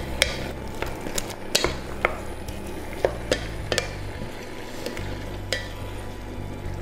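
Wooden spatula stirring egg and vegetables in a stainless steel pot, knocking and scraping against the pot's sides in irregular light taps, more often in the first half, over a soft sizzle from the cooking food.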